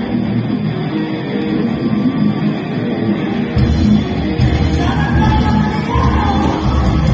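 Live rock band with electric guitars playing. About three and a half seconds in the band comes in fuller and louder, with a much heavier low end.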